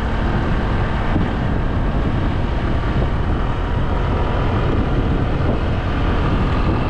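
Wind buffeting the microphone over the steady drone of a motorcycle cruising.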